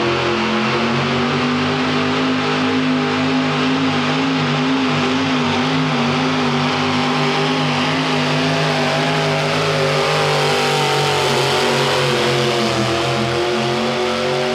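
Ford modified 4x4 pulling truck's engine held at high revs under load as it drags a weight-transfer sled, its pitch steady with a slight waver.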